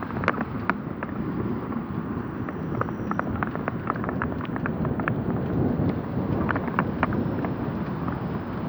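Wind and riding noise buffeting a smartphone's built-in microphone on a moving mountain bike: a steady low rumble, with many irregular sharp ticks and clicks scattered through it.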